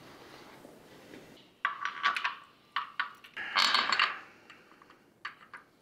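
A few short metallic clicks and clinks from hand work on the bolts at the transaxle's bell housing, the loudest about three and a half seconds in.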